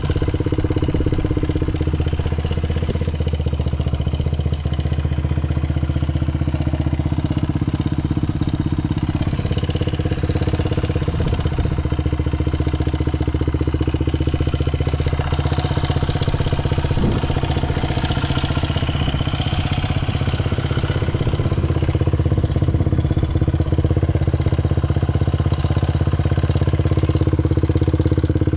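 Honda Ape 50's small single-cylinder four-stroke engine idling steadily, with no abnormal noises.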